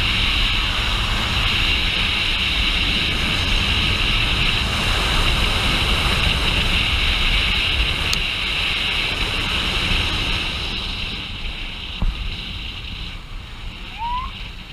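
Wind rushing over the microphone of a GoPro on a moving police motorcycle, over a low rumble from the bike and the road. The noise eases a little near the end.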